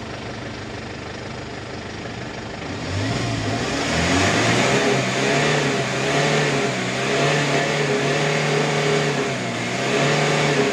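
Kia K2500's four-cylinder diesel engine idling, then revved up about three seconds in and held at raised revs with a few small dips. It runs evenly, without misfiring or knocking, after a repair for white smoke and a rough run.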